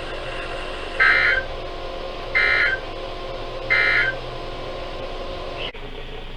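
Emergency Alert System SAME end-of-message data: three short, shrill digital bursts about a second and a half apart, signalling that the weather radio warning broadcast has ended. A faint steady hum from the radio lies under them, and a sharp click comes near the end.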